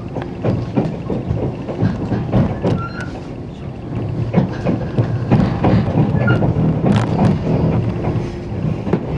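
Running noise of a 485 series electric limited express train heard from inside the passenger car: a steady rumble with frequent knocks and rattles from the wheels and car body, and a few brief high squeaks.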